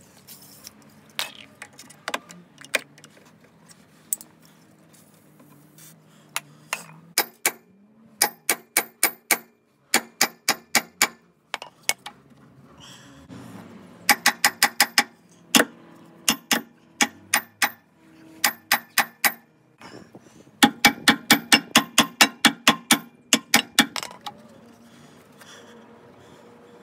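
Rapid metal-on-metal strikes, hammering on a seized, corroded Westfalia detachable tow bar to free it. The blows come in quick bursts of several at a time, about five a second, each with a short ringing tone. The longest burst falls about two-thirds of the way through.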